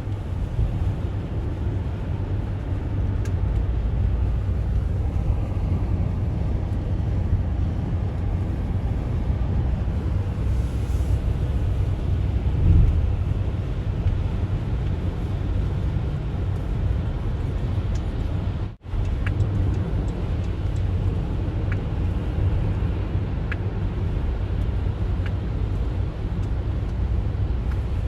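Car driving on a snowy highway: a steady low road and tyre rumble, with a short thump just under halfway and a momentary break in the sound about two-thirds of the way in.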